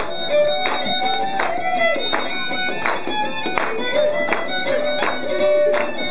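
Fiddle playing an Irish ceili dance tune over a steady, evenly spaced beat.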